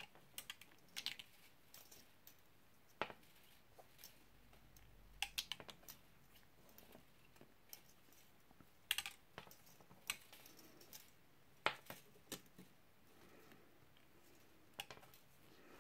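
Irregular small clicks and ticks of thin silver-plated copper wire being wrapped by hand, metal tapping lightly on metal, with a few sharper clicks scattered among quieter ones.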